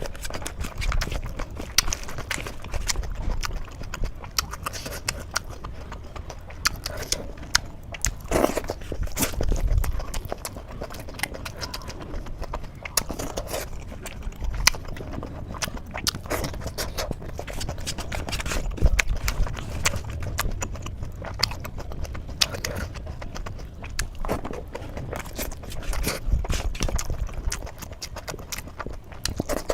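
Close-miked eating of aloo paratha with gravy and rice: chewing with frequent, irregular wet smacks and clicks of the lips and mouth.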